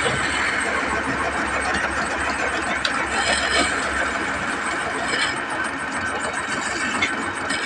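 Wood lathe running steadily with a large workpiece spinning, with a few sharp clicks and a brief rasp about three seconds in.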